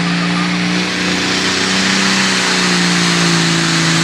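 Hot Farm pulling tractor's diesel engine running flat out under load while pulling the sled: a loud, steady engine note held near one pitch, with a dense rushing noise over it.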